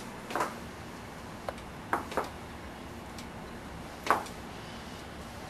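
Someone walking on crutches: a handful of dull knocks on the floor, one every second or two, two of them in quick succession, the loudest near the end.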